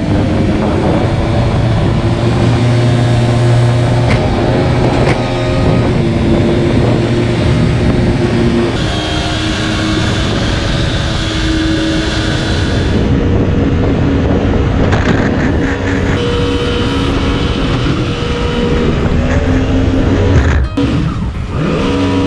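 Jet boat running at speed, its 1053cc Yamaha four-stroke engine droning steadily over the rush of the jet wash and wind. The engine note shifts abruptly a few times.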